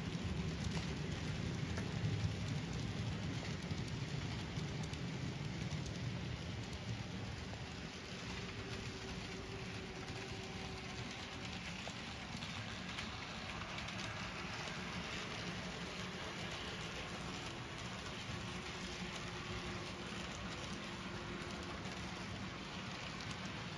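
N scale model freight train rolling past on the layout: a steady rattling rush of small wheels on the track, with a low hum that is strongest in the first several seconds and then eases off.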